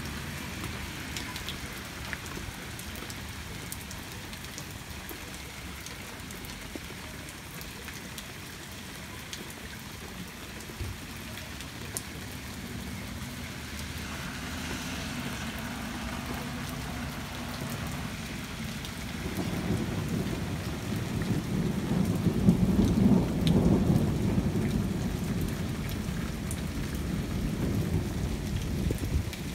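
Steady rain falling during a thunderstorm, with a long low rumble of thunder that builds about two-thirds of the way through, is loudest a few seconds later and slowly dies away.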